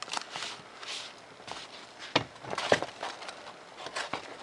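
Razor knife slicing through a sheet of 3 mm Depron foam with paper plans taped on top: a run of short scraping, crackling strokes, the sharpest and loudest about halfway through.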